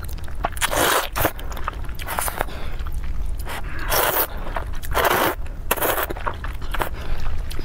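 Close-miked slurping of glass noodles in spicy soup: long slurps about a second in, at four seconds and again at five, with wet chewing and small clicks between.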